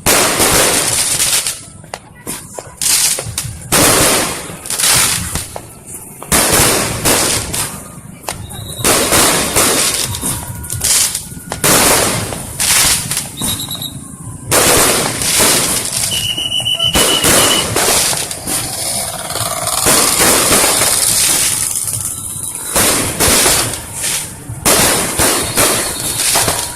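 Fireworks and firecrackers going off in quick succession, a steady run of loud bangs and crackling, with a brief whistle about two-thirds of the way through.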